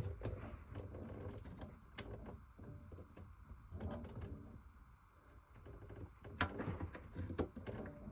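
Handling noise: irregular light knocks, clicks and rustling, with a few louder knocks near the end.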